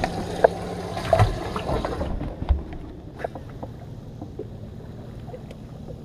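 Knocks from a bass boat's livewell lid being handled and opened, over water splashing in the livewell, for about the first two seconds. The sound then drops to a quieter steady wash of wind and water with a few small ticks.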